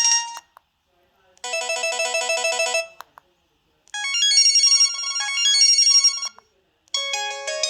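Preloaded ringtones of an LG 200c cell phone: a ringing trill cuts off just after the start, then short electronic melodies of beeping notes play in three phrases, each separated by a pause of about a second.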